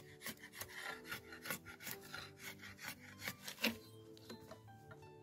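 A machete blade shaving down a green wooden pole, rapid scraping strokes about three a second, the loudest about three and a half seconds in, after which the strokes stop. Soft music plays underneath.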